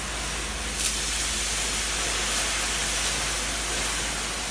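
Steady, even hiss with a low hum beneath it and one short click about a second in.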